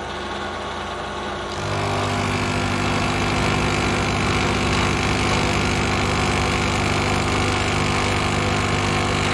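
Bridgeport milling machine spindle running at about 1400 RPM. About a second and a half in, the freshly reground end mill bites into an aluminium block, and the sound grows louder and fuller as it cuts steadily.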